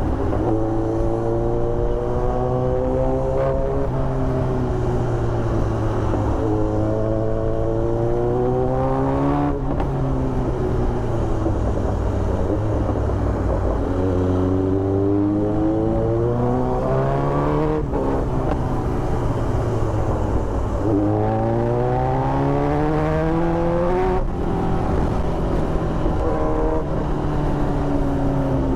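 Kawasaki Z900 inline-four with an Austin Racing aftermarket exhaust, accelerating through the gears. Its pitch climbs and drops sharply at each of four upshifts, and it eases off between pulls.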